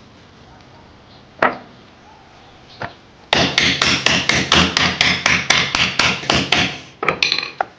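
A couple of single knocks, then a fast, even run of sharp knocks, about five a second, over a hiss for several seconds, with a few more knocks near the end.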